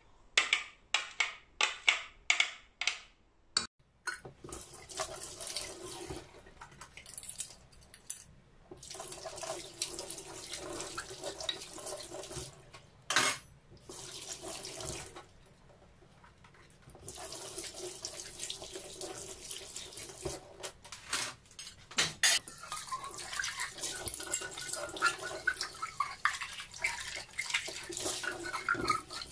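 A quick run of sharp knocks as a plastic blender jar is tapped on a steel bowl to empty it, then a kitchen tap running into a stainless steel sink while the blender parts and a steel pot are rinsed, the flow stopping briefly a couple of times, with occasional clanks of the utensils.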